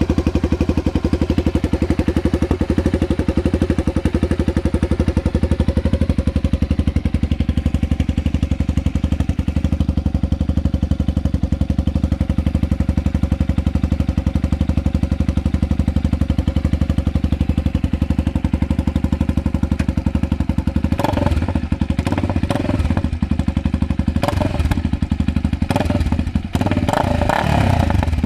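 Honda CB300R single-cylinder four-stroke engine idling through an aftermarket exhaust tip with a loud, deep rumble and even firing pulses; near the end the sound turns uneven and rougher.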